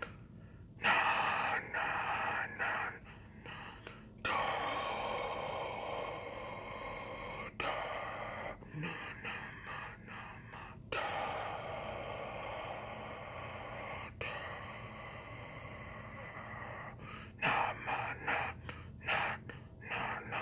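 A man gasping and breathing hard behind a hand held over his mouth. A few sharp gasps come first, then a series of long drawn breaths of about three seconds each, then quick gasps again near the end.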